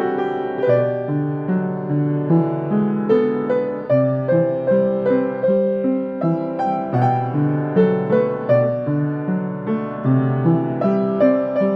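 Piano playing a slow, gentle melody over lower accompanying notes, with a steady pulse of struck notes.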